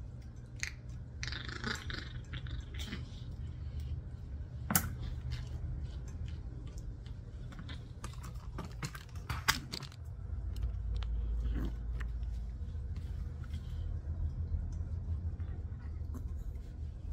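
Steel grooming comb drawn through a puppy's coat: scattered small scrapes and clicks, with a sharper click about five seconds in and a cluster of them around the middle. A steady low hum runs underneath and grows louder about two-thirds of the way through.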